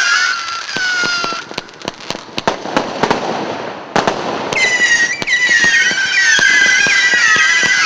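Bonfireworks Earcatcher 49-shot firework cake firing: shrill whistles fade out in the first second and a half, then the glittering stars crackle and pop, with a sharp crack about four seconds in. About four and a half seconds in, several whistles start together, each sinking slightly in pitch.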